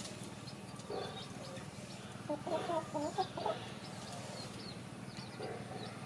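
A chicken clucking in a short run of quick calls about two seconds in, over a steady low hum, with faint high chirps scattered through.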